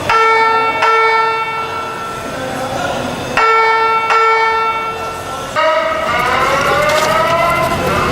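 Fire alarm evacuation signal, the FireCom 8500 whoop/chime tone, sounding through alarm speakers. Two ringing chime strikes come at the start and again about three and a half seconds in, then rising whoop sweeps repeat from about five and a half seconds in.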